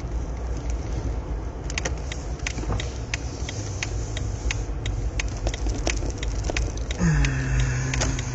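Steady low rumble of a car on the move, heard from inside, with scattered light clicks. About seven seconds in, a low steady tone comes in, dips slightly in pitch and holds.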